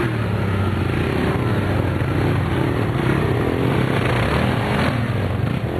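Quad ATV engines running and revving, the pitch wavering up and down as the riders work the throttle.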